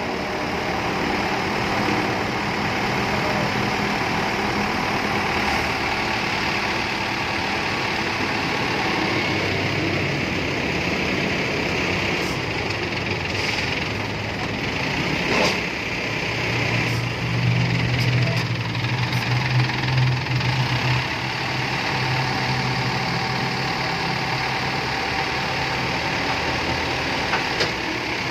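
Utility truck's engine running steadily while it drives the hydraulics of the boom truck's outrigger jacks, with a deeper, louder hum for a few seconds past the middle as the hydraulics work under load. One sharp click about halfway through.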